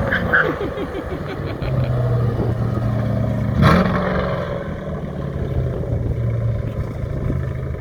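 2000 Ford Mustang SVT Cobra R's 5.4-litre V8 running steadily through its exhaust, with a single sharp knock about three and a half seconds in.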